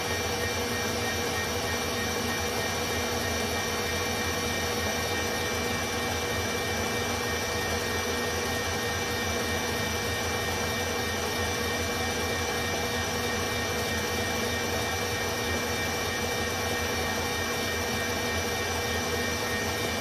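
Electric mixer with a balloon whisk running steadily at high speed, a constant motor whine with a few steady tones, as it whips eggs and sugar for a sponge batter.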